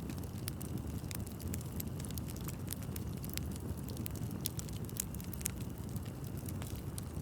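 Wood fire burning with a steady low rumble and frequent, irregular sharp crackles and pops.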